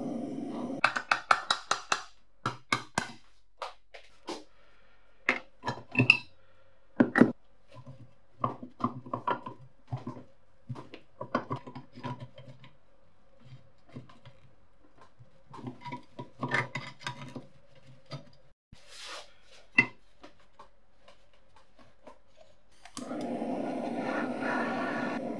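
A handheld gas torch burning with a steady hiss, which stops about a second in; then a long run of sharp, irregular metallic clicks and taps as pliers and other metal tools work against the rusty cast-iron body of an antique clothes iron. Near the end the torch is lit and burns steadily again.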